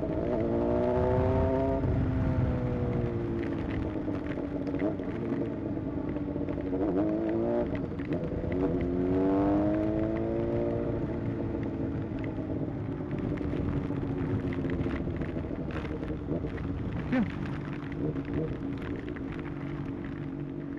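Honda CBR600 motorcycle's inline-four engine under way, its pitch climbing and easing off as the throttle is opened and closed, most clearly near the start and again around the middle, over a steady low rumble.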